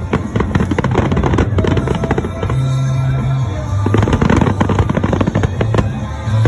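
Fireworks crackling and popping in rapid, dense volleys, with music and a held bass line playing underneath.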